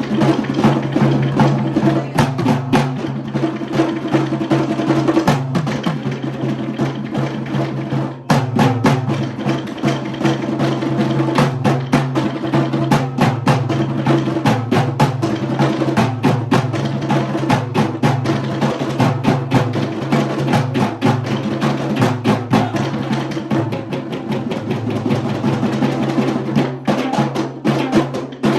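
Sri Lankan traditional drum ensemble of Kandyan drum, thammattama, daula, yak bera and bass drum playing fast, dense interlocking rhythms, with a brief break about eight seconds in.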